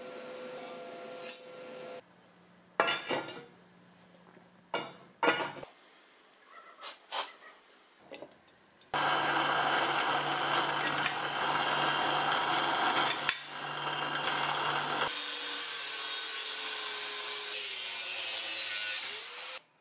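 Workshop metalworking on a steel plate. First a wire brush scrubs the plate in a few short, sharp strokes. About nine seconds in, a drill press starts drilling the steel, loud and steady with a motor hum. About fifteen seconds in, an angle grinder cuts the plate, its pitch slowly falling under load, and stops just before the end.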